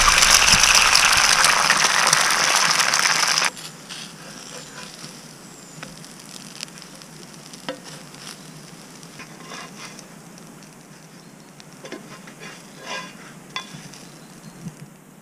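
Loud sizzling of food frying in hot oil in a cast-iron skillet, which cuts off suddenly after about three and a half seconds. Then a quieter sizzle with scattered clicks and scrapes of a spatula against the pan and plates.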